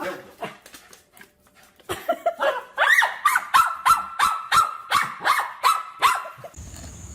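An animal giving a quick run of about a dozen short, high calls, roughly three a second, which stop suddenly near the end.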